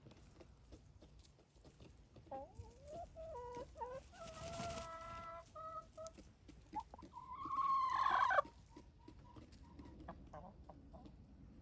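Backyard chickens clucking in short calls, then one louder, longer call about seven seconds in that breaks off suddenly.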